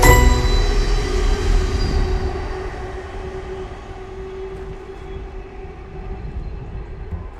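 A passing train going away: loud at first with a steady hum, fading over about the first three seconds to a quieter rumble as it recedes.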